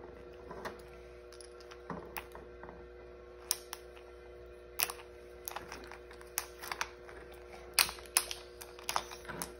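Plastic-and-foil Mighty Beanz blind-pack packaging being torn open and handled: irregular sharp clicks and crinkles, the loudest cluster near the end. A faint steady hum underneath.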